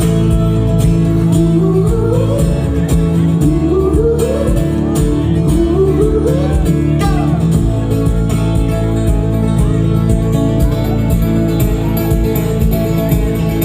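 Live pop-rock band playing an instrumental break: guitar, bass and drums, with a melody line that slides upward three times in the first half.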